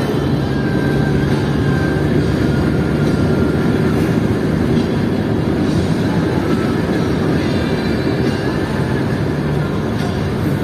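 Steady road rumble and engine hum of a car driving along a paved highway, heard from inside the cabin.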